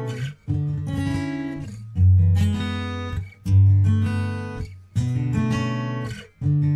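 Background music of strummed guitar chords, one strum about every second and a half, each left to ring out.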